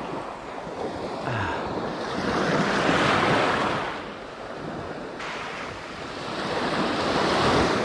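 Small surf washing up over the shallows at the waterline, swelling loudest about three seconds in and again near the end, with wind buffeting the microphone.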